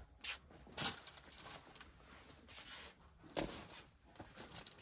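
Handbags being handled: three short rustles or knocks, the loudest about a second in and another near three and a half seconds, over faint low background noise.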